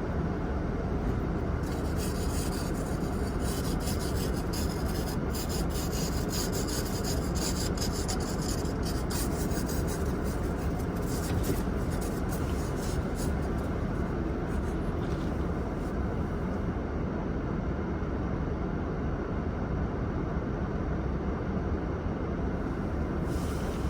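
Steady low rumble of a car idling, with scratchy rubbing noises over it for the first half or so.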